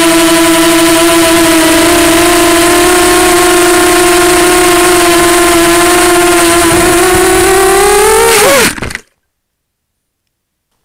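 Lumenier QAV250 racing quadcopter's four Multistar 2204 2300KV brushless motors and props whining steadily in flight, heard through the onboard camera. Near the end the pitch swoops up and back down as the quad flies too low into the crop and crashes, then the sound cuts off abruptly.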